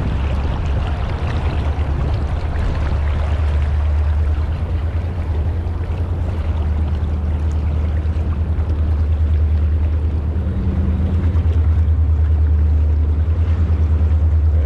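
Wind buffeting the microphone as a steady low rumble that flutters rapidly, over the even rush of a fast-flowing river.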